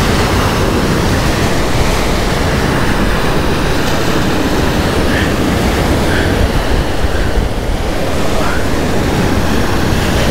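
Steady wind rushing over the microphone, mixed with waves washing against the shore.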